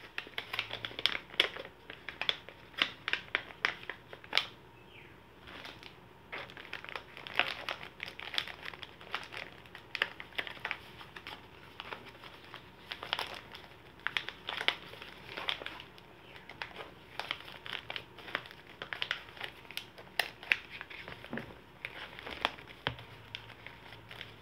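Packaging pouches and bags crinkling and rustling in the hands as they are opened and handled, in quick irregular crackles.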